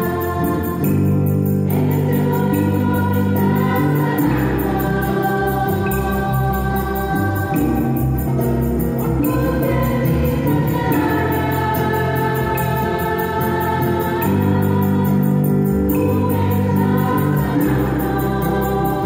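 Mixed choir of men and women singing a slow Catholic healing hymn in long held chords that change every few seconds, accompanied by acoustic and electric guitars.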